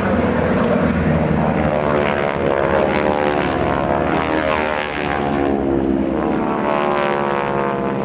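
Propeller-driven aircraft flying past with its piston engine running loudly. The engine note slides down in pitch as it passes, around the middle.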